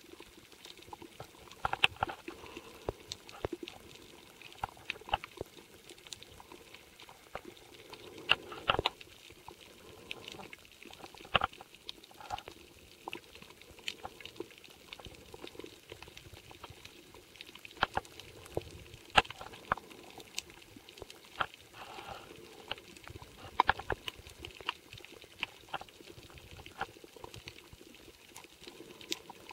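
Underwater sound of a coral reef picked up by a waterproof camera: an irregular crackle of sharp clicks, several a second, with a few louder snaps, over a faint hiss.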